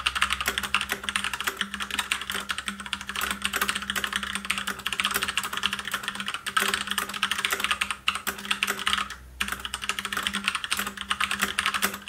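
Continuous fast typing on a mechanical keyboard with brown tactile switches: a dense run of key clicks, pausing briefly about nine seconds in.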